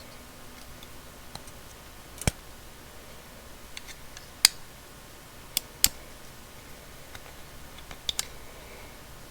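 A folding multi-tool being handled: a few sharp, separate clicks as its spring-loaded parts snap open and shut, two of them close together near the middle and two more near the end.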